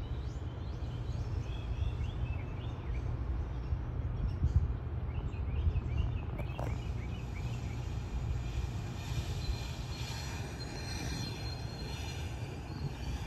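New Jersey Transit electric multiple-unit commuter train approaching slowly: a steady low rumble, with birds chirping over it. There is a sharp click about six and a half seconds in, and a faint high hiss in the second half.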